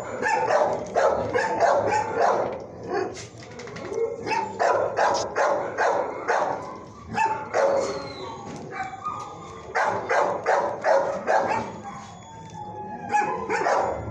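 Dogs in a shelter kennel barking, rapid barks overlapping almost without pause, easing off briefly about three seconds in and again near the end.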